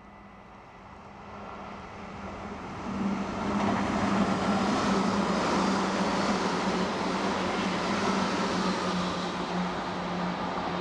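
Dutch Railways (NS) electric passenger train passing at speed: the rush and rumble of wheels on rail grows out of the distance and is loud from about three seconds in, over a steady low hum.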